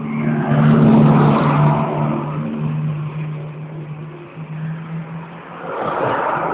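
Suzuki GSX250SS's four-cylinder engine running with a steady low note. The throttle is blipped about a second in and again near the end, each rev swelling and dropping back.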